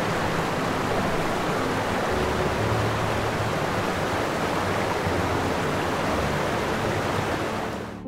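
Steady rushing of sea water, with faint low held tones underneath; it fades out just before the end.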